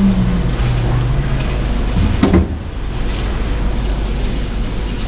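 Gelato vending machine's robotic suction arm whirring and humming as it moves its vacuum hose over the freezer toward the cups, with one sharp knock a little over two seconds in.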